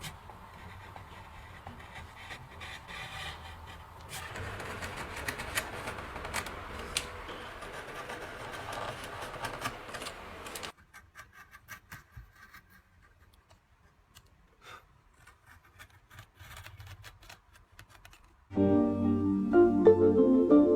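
Carving knife cutting into a wooden bowl: scraping and small sharp cracks of wood being cut, fuller after about four seconds, then fainter and sparse after about ten. Loud piano music comes in near the end.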